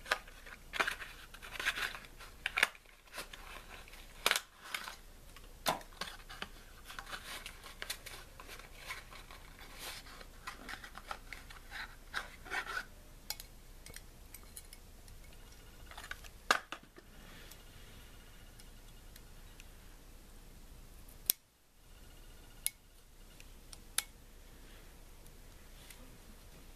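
Piston rings being spread and snapped into the grooves of an engine piston: light metallic clicks and scraping, frequent for the first dozen-odd seconds, then only a few scattered clicks.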